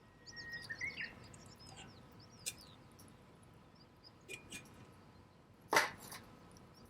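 Birds chirping in the first second, then a handful of sharp cracks and pops from a wood campfire, the loudest a little before the end.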